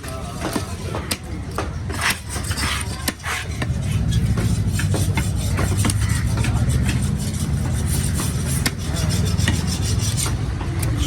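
A knife scraping and chopping fish on a cutting board, with many sharp knocks. A low steady hum comes up underneath from about four seconds in.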